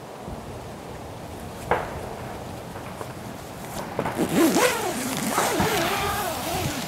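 A tent's door zipper being drawn open, a run of rasping zipper sweeps that rise and fall in pitch, starting about four seconds in after a single click.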